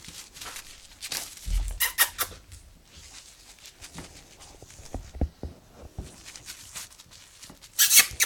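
Month-old puppies moving about on puppy pads and eating from metal bowls: scattered rustles, clicks and soft thumps, with a quick run of scratchy strokes near the end.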